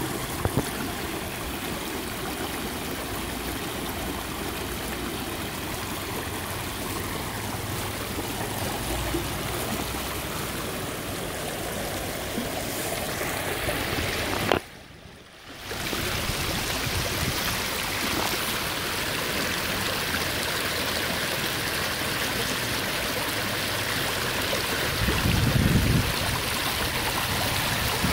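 Small rocky stream running in shallow rapids over and around stones, a steady rushing burble. The sound drops out for about a second halfway through, and a low rumble joins it near the end.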